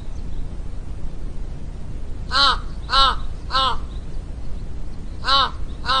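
A large black corvid cawing: three caws about half a second apart, a pause, then two more, each call rising and falling in pitch. A low steady rumble runs underneath.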